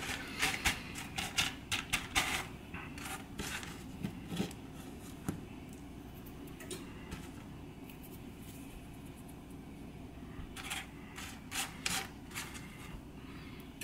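Dry pinto beans clicking and rattling as a hand sweeps and picks through them on a plastic cutting board, sorting out stones. Quick runs of clicks in the first few seconds, a quieter stretch, then more clicks near the end.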